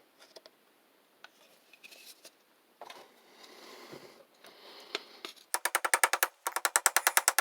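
Small hand-handling noises, then two fast runs of sharp, even clicks, about a dozen a second, from the one-way ratchet in a Briggs & Stratton WMB kickstart pulley as the pulley is turned on the crankshaft.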